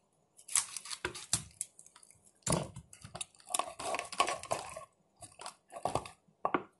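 Knife working through a raw whole chicken on a wooden cutting board: irregular wet squishing and crunching as the blade forces through skin and joints, with sharp knocks on the board. The bird is tough and hard to cut.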